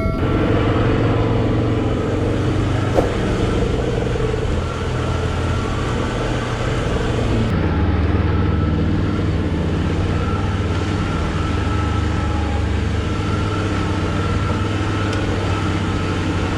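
Suzuki Jimny off-roader's engine running at steady revs while driving, its note changing about halfway through.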